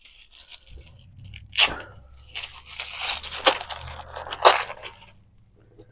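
Package wrapping being torn and crinkled open by hand: irregular crackling and rustling, with sharper rips about a second and a half in and again around three and a half and four and a half seconds.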